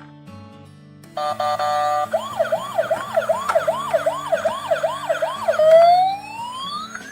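Emergency-vehicle siren sound effect over background music. It starts about a second in with three short steady tones, goes on with a rapid rising yelp repeating about three times a second, and near the end turns into one long rising wail.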